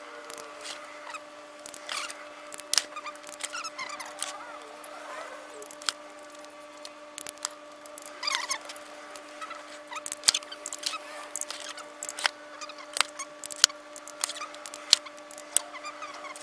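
Hand tools at work on transmission pan bolts: scattered sharp wrench clicks and short squeaks as the bolts are tightened and torqued with a 6 mm Allen socket and an inch-pound torque wrench, over a steady hum.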